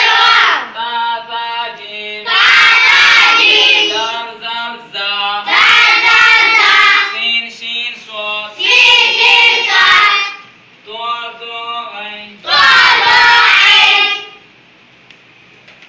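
A class of children chanting in unison, repeating line by line after a single leading voice, as in a call-and-response drill of Arabic letters and their vowel marks. Four loud group lines alternate with the quieter single voice, and it goes quiet about a second and a half before the end.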